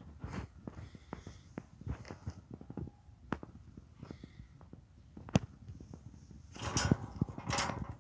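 Footsteps crunching on gravel and rubble, with scattered knocks and clicks and one sharp knock about five and a half seconds in; a brief rustling scrape near the end.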